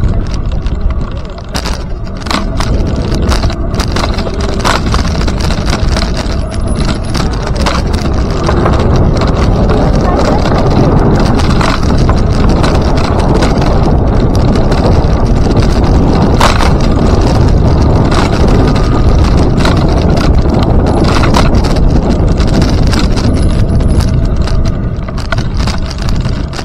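Wind rumble on the microphone and rolling road noise from riding along a paved trail, with frequent clicks and rattles. It grows louder about eight seconds in.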